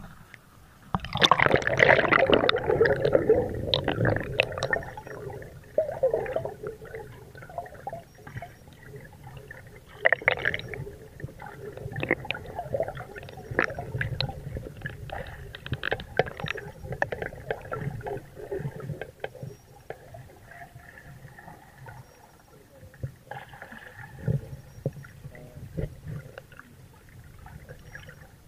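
Muffled water sounds picked up through an action camera's waterproof case as it is dipped under the surface: a loud burst of sloshing and gurgling about a second in, then softer gurgles, low rumbles and scattered clicks while it is submerged.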